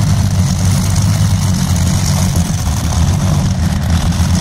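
Twin Rolls-Royce Griffon V12 aero engines of a pulling tractor idling steadily and loud.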